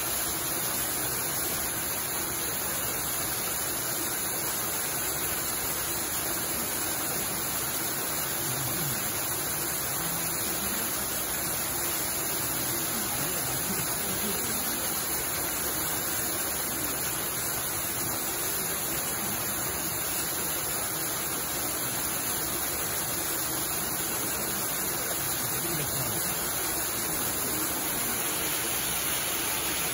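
Steady, unchanging rushing hiss like running water, with no distinct events.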